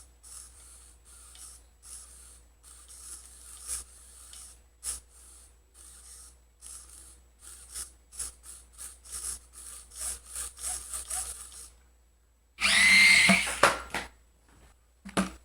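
Small electric motor and drivetrain of a Team Associated SC28 1/28-scale RC short course truck whining in a string of short throttle blips. Near the end comes a much louder run of about a second and a half, then one more short blip. The truck is being test-run with its shifted pinion gear reset.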